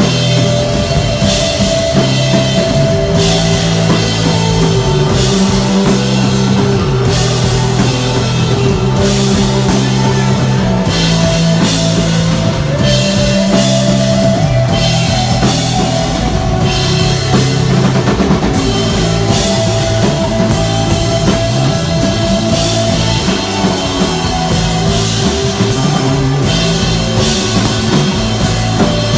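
Desert rock band playing instrumental rock live: electric guitar lines and a drum kit with steady cymbal hits, over low notes held underneath.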